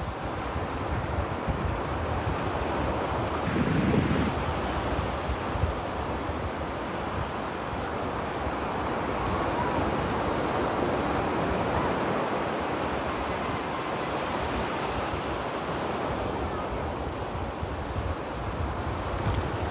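Ocean surf washing onto a beach: a continuous, steady rush of breaking and receding waves.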